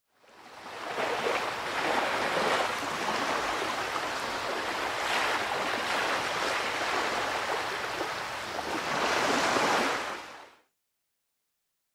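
Ocean surf, waves washing in and out in several surges. It fades in, then stops quickly shortly before the end.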